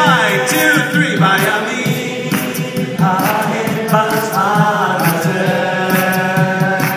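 Male a cappella group singing in harmony, live through the hall's sound system: several voices sustain chords over a low sung bass line, with a lead voice on top and beatboxed vocal percussion ticking along steadily.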